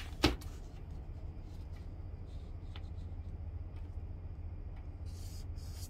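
Marker pen drawing faint strokes on kraft pattern paper along a curved ruler, with one sharp tap near the start, over a steady low hum.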